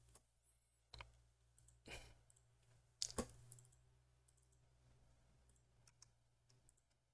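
Near silence broken by a few faint clicks and knocks, the loudest pair about three seconds in, then a few small ticks.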